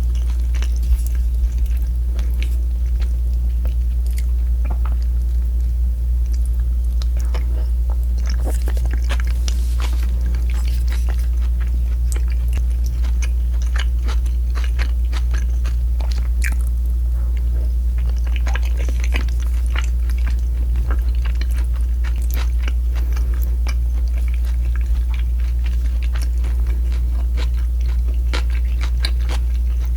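Close-miked eating: a person biting, chewing and crunching crispy food, with many short crisp clicks that thicken at times. A strong steady low hum runs underneath.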